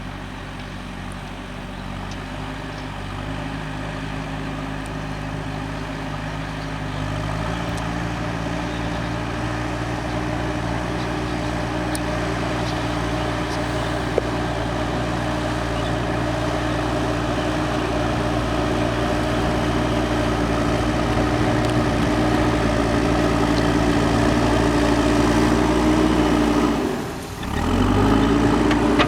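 JCB 3DX backhoe loader's diesel engine running steadily and growing louder, its pitch stepping up once early on. Near the end the engine sound briefly drops away and then climbs back up.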